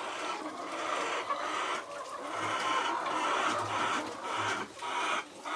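A flock of laying hens clucking together in a continuous, uneven chatter.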